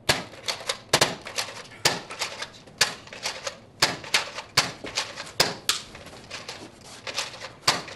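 Nerf foam-dart blaster fired over and over, a sharp snap with each shot, about two to three a second at uneven intervals.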